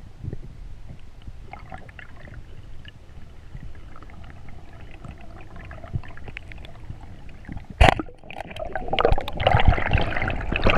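A 130 cm roller speargun fires underwater with one sharp crack about eight seconds in. A loud, rising rush of water noise follows as the shaft's line runs out after the shot. Before the shot there is only a faint underwater hiss with small clicks.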